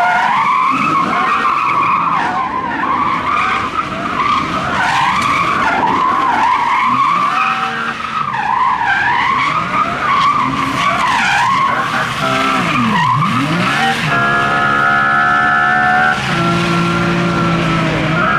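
Race car tyres squealing through long, wavering slides while the engine revs. Near the end the sound settles into steadier, even tones that step in pitch a couple of times.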